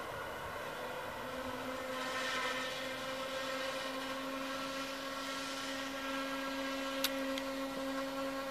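Siemens Desiro diesel railcar running past, with a steady engine drone and whine holding one pitch and a hiss rising from about two seconds in. Two sharp clicks come about seven seconds in.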